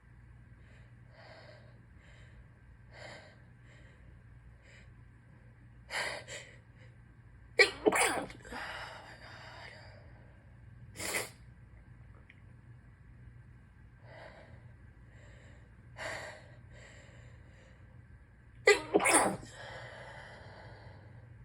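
A person in a sneezing fit while sick: several sudden sneezes with in-breaths between them. The two loudest come about 8 and 19 seconds in, each a quick double burst with a breathy tail.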